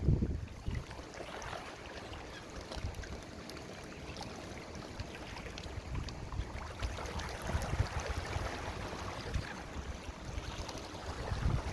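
Wind buffeting the microphone over a steady wash of lake water, the gusts strongest at the start and again near the end.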